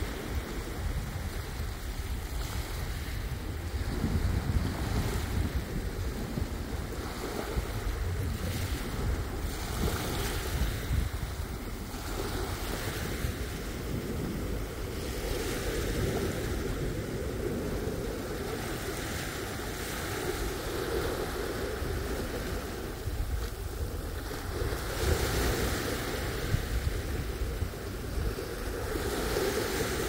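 Small waves lapping and washing up over sand and pebbles, swelling now and then as a wave runs in, with wind rumbling on the microphone.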